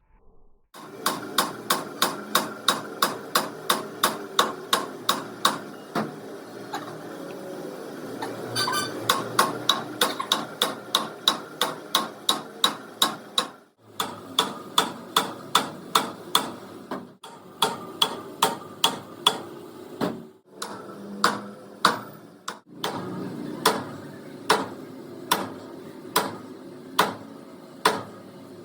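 Hammer blows on metal, struck steadily at about two to three a second in long runs with short pauses between them, each blow ringing briefly.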